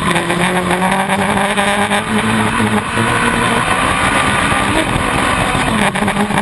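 Sand rail engine running hard under throttle while driving across dunes, its pitch holding mostly steady with small rises and dips, over a constant rushing noise.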